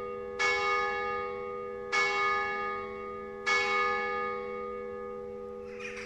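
A single church bell, the second of the basilica's five electrified bells, tolled in single strokes (tocchi) for mass: three strokes about a second and a half apart, each ringing on and fading. The bell is struck rather than swung, as the bells have been rung since the earthquake.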